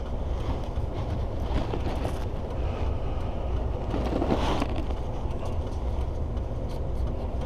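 Steady low rumble of an idling vehicle engine, with an even background hiss.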